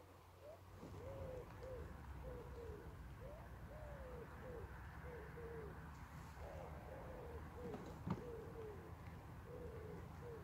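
A pigeon cooing faintly: a long run of short, curving coo notes, repeated in groups with short pauses between them.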